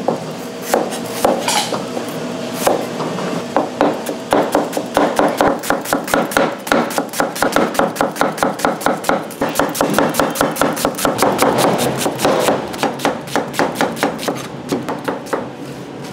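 Chef's knife slicing onions on a plastic cutting board, the blade knocking the board with each cut: a few uneven strokes at first, then a fast, steady chopping rhythm from about four seconds in.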